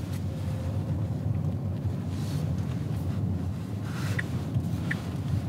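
Road and tyre noise inside the cabin of a Tesla Model S Plaid, an electric car, while driving: a steady low rumble with no engine sound. Near the end, a light tick repeats about every 0.7 seconds.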